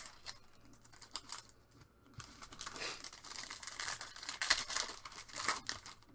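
Foil trading-card pack wrappers crinkling and cards being handled: a run of rustles and small clicks that grows busier and louder about two seconds in.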